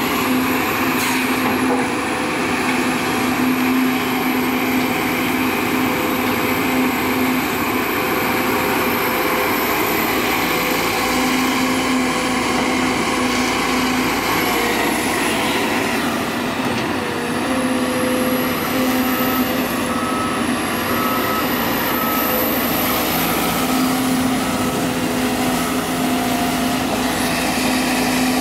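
Sumitomo SH210 excavator's diesel engine running steadily, with a high whine that rises and falls now and then.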